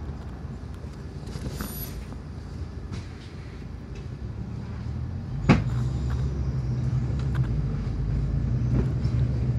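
Low engine rumble of a nearby road vehicle, getting louder and steadier after a single sharp knock about halfway through.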